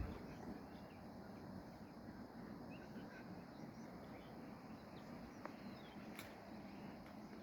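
Faint outdoor background hiss with a few faint, brief bird chirps and a couple of light clicks near the end.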